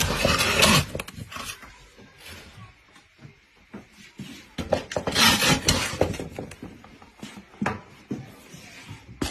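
Irregular knocking and clattering of objects being handled, with two louder scraping, rushing bursts: one at the start and one about five seconds in.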